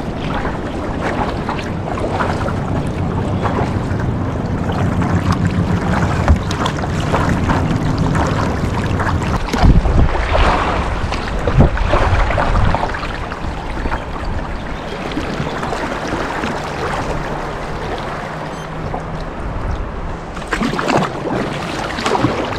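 Water sloshing and splashing around a kayak under way, with wind rumbling on the microphone; louder splashes come about ten and twelve seconds in.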